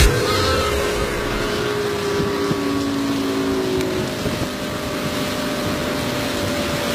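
Towing motorboat running steadily at speed: a continuous engine drone mixed with the rush of wind and water from the wake.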